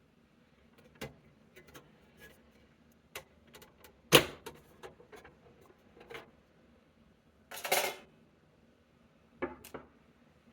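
Clicks and knocks of a compact desktop PC's plastic and metal case parts being handled and taken apart, with one sharp knock about four seconds in and a short scrape of parts sliding near the end.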